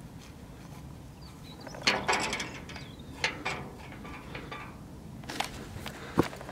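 Old, rusty wrought-iron gate rattling, clanking and creaking as it is gripped, shaken and swung open. There is a loud clatter about two seconds in and scattered clanks later on.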